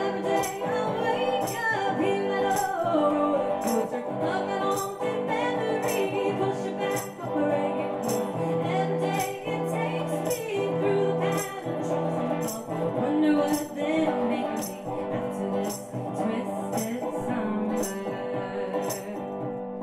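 Live song: a woman singing over electric guitar, with a light, high percussion tick about twice a second.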